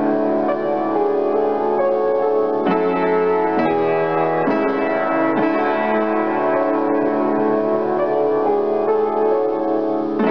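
Solo piano music: sustained chords, with new chords struck about once a second in the middle.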